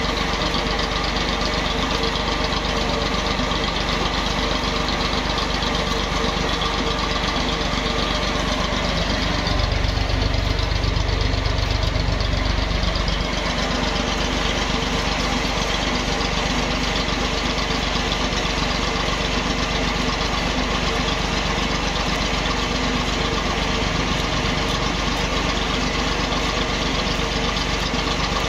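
Screw oil expeller running steadily as it presses oilseed and pushes out seed cake: a continuous mechanical drone with a steady pitch. A deeper rumble swells for a few seconds about a third of the way through, then settles back.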